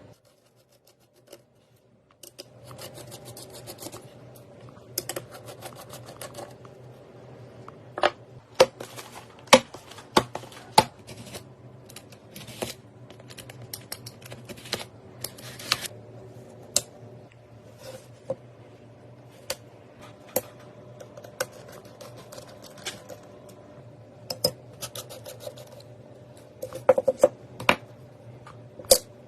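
Irregular sharp clicks and taps of computer hardware being handled and fitted together, over a steady low hum.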